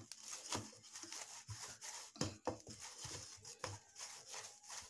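Hands kneading a soft, oiled dough of rice flour and gram flour in a stainless steel bowl: irregular soft knocks and rubbing as the dough is pressed and turned against the steel.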